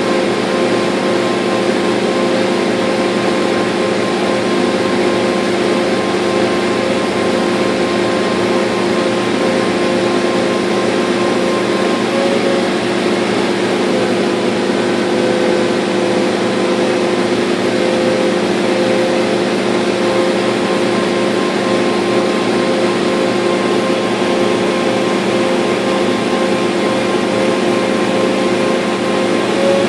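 Laser cutter running as it cuts 1/2-inch birch: a loud, steady machine hum and whir with a few constant tones, unchanged throughout.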